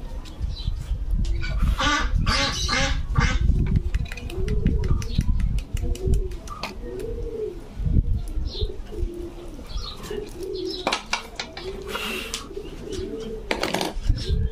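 Pigeons cooing over and over in short rising-and-falling calls, mixed with sharp clicks and scrapes of scissor tips picking a hole in an eggshell.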